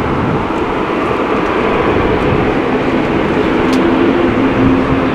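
Engines of an Airbus A350-1000 jetliner running at taxi power as it rolls past close by: a loud, steady rumble, with a low hum joining about halfway through.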